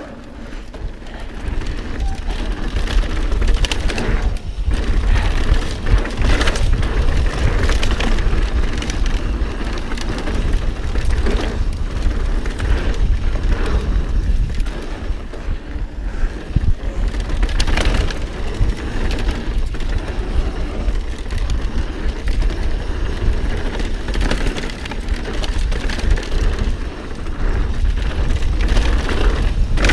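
Mountain bike riding down a dirt trail, heard close up on the bike's camera: steady wind rumble on the microphone over tyre noise, with frequent knocks and rattles as the bike hits bumps and rocks.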